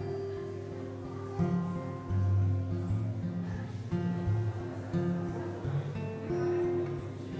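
Two acoustic guitars playing an instrumental piece, strummed chords changing about once a second, with no singing.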